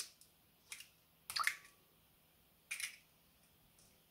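A hen's egg being cracked and emptied into a bowl of batter ingredients: a few short sharp knocks and wet squelches, the loudest about a second and a half in.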